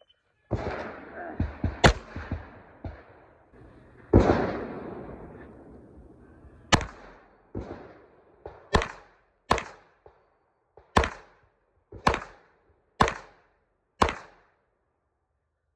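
Pistol shots in a series of live-fire strings. First a quick burst of shots, then a single loud shot about four seconds in, then about eight shots at roughly one a second, each ringing out briefly.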